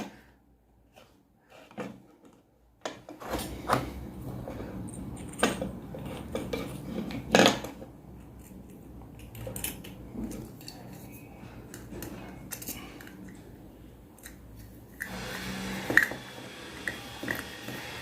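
Scattered small clicks, taps and light metallic clinks of hands-on electrical work: wires being fitted to a bulb holder's terminals.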